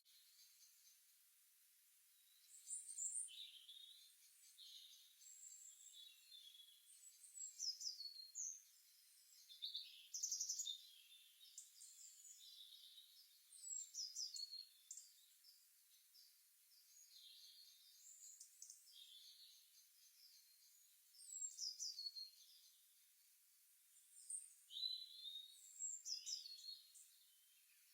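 Songbirds chirping and singing in the early morning: short high phrases, many sliding downward, coming every second or two over a faint hiss.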